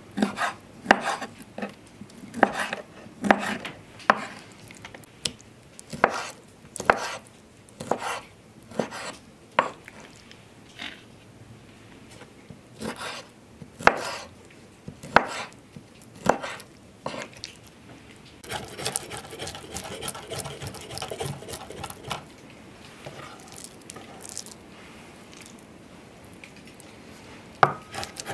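Kitchen knife chopping raw shrimp on a wooden cutting board: separate knocks of the blade onto the board, roughly one a second. About two-thirds of the way through come a few seconds of quicker, close-spaced chopping.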